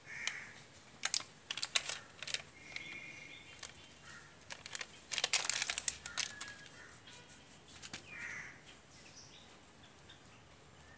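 Sharp clicks and light knocks of small brake wheel-cylinder parts, rubber cups and metal pistons, being handled and set down on a cloth, with a cluster of clicks in the middle. Birds call briefly a few times in the background.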